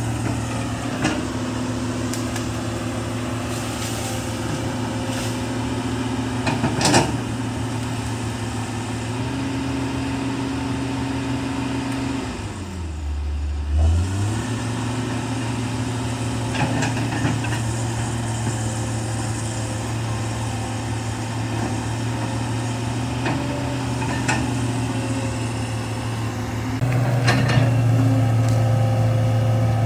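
Large hydraulic excavator's diesel engine running steadily, with scattered sharp knocks as it works. The engine note drops briefly about halfway and comes back louder, under load, near the end.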